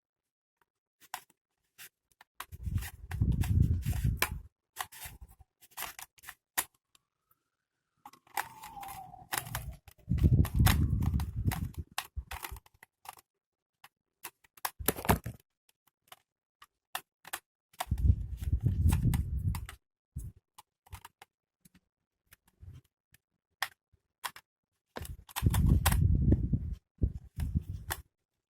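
Philips HP8126 400-watt hair dryer switched on in four short bursts of about two seconds each, each a low rush of air, with sharp clicks from the switch and handling in between.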